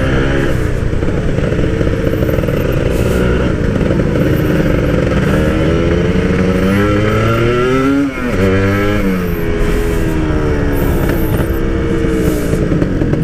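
Two-stroke motorcycle engine under way with a stock exhaust, its pitch rising and falling with the throttle: it climbs for a few seconds, drops sharply about eight seconds in as a gear is changed, then climbs again.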